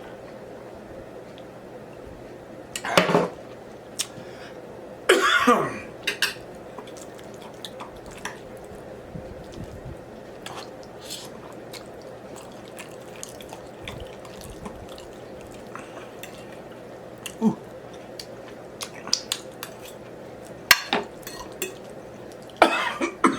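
Two short coughs early on, then scattered light clinks of cutlery against a plate and dishes over a steady low room hum.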